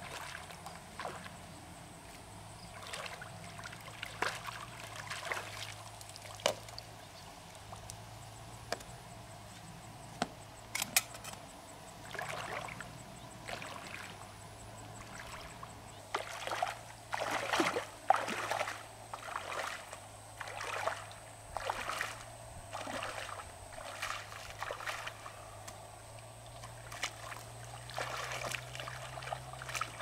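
Shallow water sloshing and splashing around bare legs wading through a muddy pond, in uneven surges of a step or a stir at a time.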